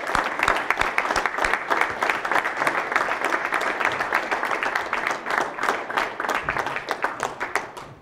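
An audience clapping in a sustained round of applause, which dies away near the end.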